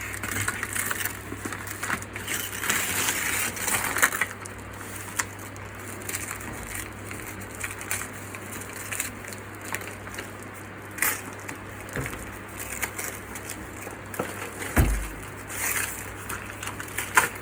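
Packaging being handled and torn open: plastic and cardboard rustling and crinkling in irregular spurts, most busily in the first few seconds, with scattered sharp clicks and a dull thump about fifteen seconds in.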